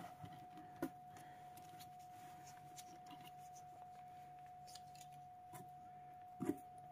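Very quiet room tone with a steady faint high-pitched hum, a few soft clicks, and a brief louder rustle near the end.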